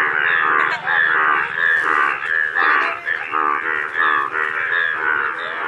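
Chorus of many Indian bullfrogs calling over one another: short, rapidly pulsed croaks overlapping without a break. These are yellow-coloured males calling in their breeding chorus.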